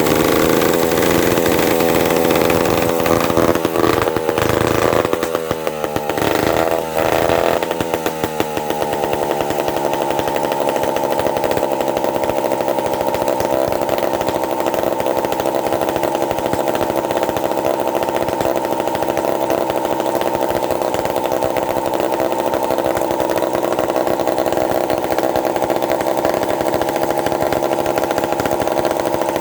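1951 Lombard Wizard two-stroke chainsaw engine running. Its pitch dips and wavers between about four and eight seconds in, then it settles and runs steadily.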